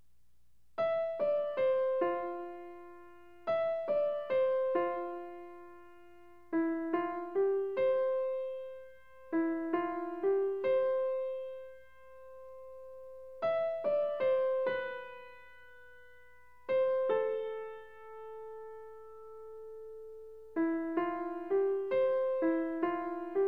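Background music: a slow, simple piano melody of single struck notes that ring and fade, played in short phrases with brief pauses between them.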